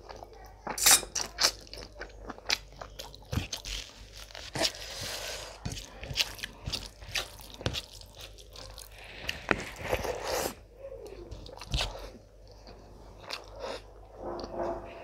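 Close-up eating sounds: chewing and biting on mutton and rice, with many sharp wet clicks and smacks, and a hand mixing rice and gravy on a metal platter.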